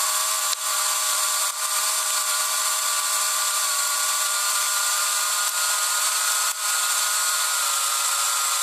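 A small motor running steadily: an even whine over a loud hiss, with a few brief dips.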